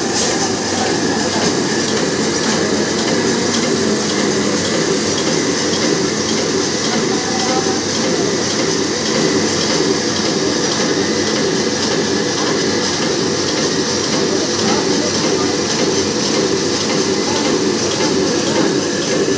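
Four-line tissue paper making machine running at production speed: a loud, steady mechanical clatter of its folding and cutting mechanism.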